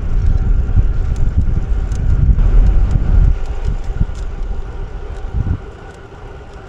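Wind rumbling on the camera microphone as the road bike rides along at speed. The rumble eases off about five and a half seconds in.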